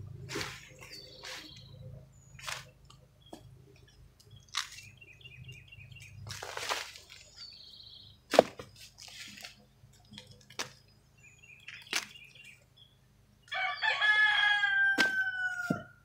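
A rooster crows once near the end, one long crow of about two and a half seconds that drops in pitch as it closes. Before it come sharp snaps and rustling of sweet corn stalks and leaves as ears are pulled, with a few faint bird chirps.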